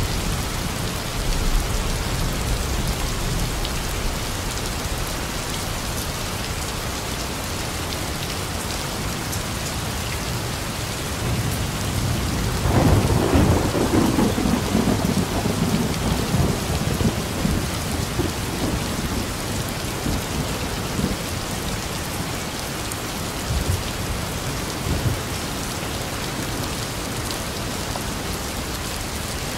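Heavy rain falling steadily, with a roll of thunder a little before halfway through that rumbles and fades over several seconds.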